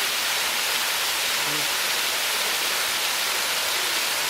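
Waterfall: a steady, unbroken rush of falling water, mostly high hiss.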